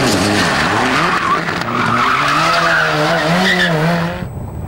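Rally car engine revving hard, its pitch climbing and dropping several times through gear changes, with tyres scrabbling on loose gravel as the car slides. The sound drops away abruptly near the end.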